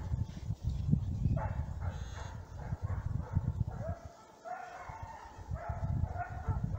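Russian hounds baying faintly in the distance, a run of repeated short yelping calls starting about a second and a half in, over a low rumble. The hounds are giving tongue on freshly raised quarry.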